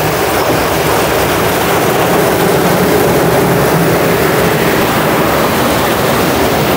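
Automatic car wash running: large rotating cloth brushes swishing against a pickup truck, with machinery noise and a low motor hum. The noise is loud and steady.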